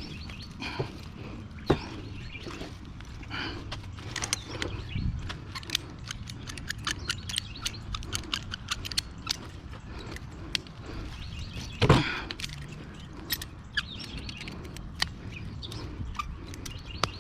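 Scattered light metal clicks and scrapes from working copper tubing loose from a window air conditioner's aluminum-finned coil, with one louder knock about twelve seconds in.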